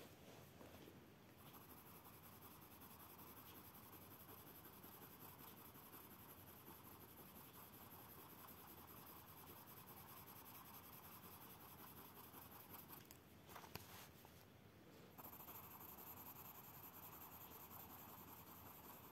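Faint, steady scratching of a Caran d'Ache pencil blender rubbed back and forth over a coloured-pencil swatch on paper, blending the pigment. It stops briefly about two-thirds of the way through with a small click, then resumes a little louder.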